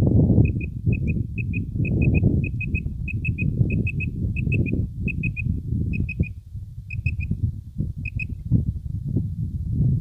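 Common quail calling: quick high phrases of two or three notes, repeated about every half second, stopping a little after eight seconds in. Under them is a heavy low rumble of wind on the microphone.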